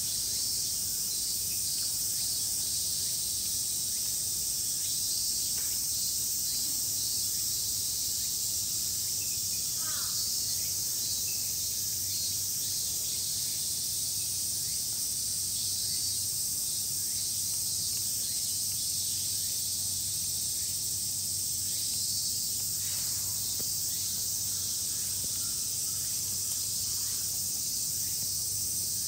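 Steady, high-pitched chorus of summer cicadas, with a single short chirp about ten seconds in.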